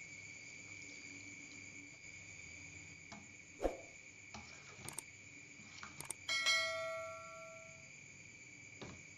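Metal spoon clinking against a metal bowl while stirring: a few light knocks, then about six seconds in one ringing clang that dies away over a second or so. Crickets chirp steadily in the background.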